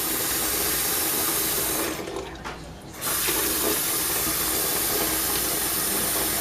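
Kitchen faucet running into a bowl of broken spaghetti noodles, filling it with water. The flow breaks off for about a second about two seconds in, then runs again steadily.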